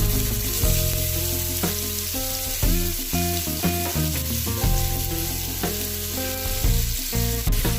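Onions sizzling as they fry in hot oil in a kadai, a steady hiss. Instrumental background music plays under it.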